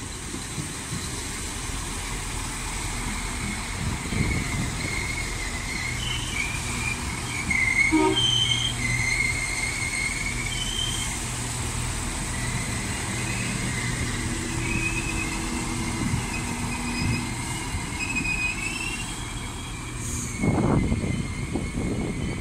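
Irish Rail 22000 Class InterCity railcar, a diesel multiple unit, running slowly past along the platform: a steady drone from its underfloor diesel engines, with high wavering wheel squeal through most of the pass and a few knocks about twenty seconds in.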